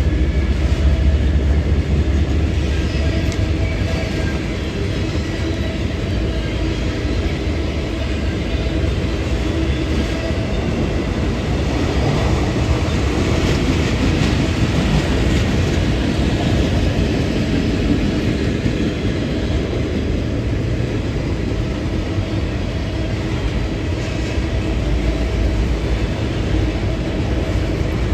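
A train rolling by: a loud, steady rumble of wheels on rails, running unbroken for the whole stretch.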